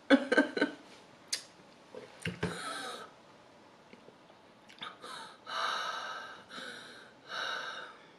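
A woman breathing hard through her mouth after eating a superhot-pepper chocolate bar, reacting to the burn. A short sound from her voice comes at the start, then several long, breathy exhales follow in the second half.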